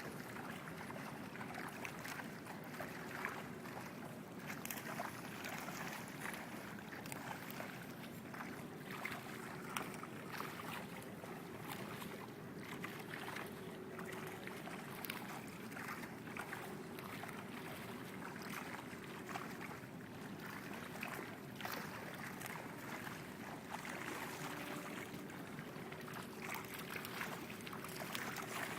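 Water splashing continuously with many small, irregular splashes as a school of fish churns the surface, over a faint steady hum.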